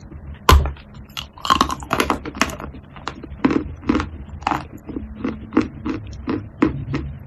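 A bite into a donut-shaped piece of dry chalk, breaking off with a loud crack about half a second in, followed by crunchy chewing of the chalk, about two crunches a second.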